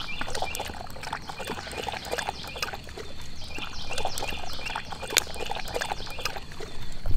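A German Shepherd lapping water from a plastic bowl: a quick, irregular run of wet laps and splashes.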